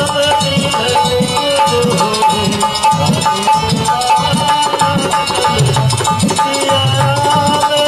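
Instrumental folk music: a hand drum beating a steady rhythm under a held, slightly wavering melody line.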